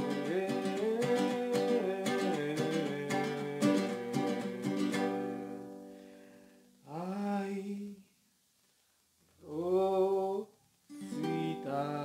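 Small guitar strummed in chords for about five seconds, then left to ring out. After that a voice sings three short drawn-out notes that bend in pitch, the last one over a ringing chord.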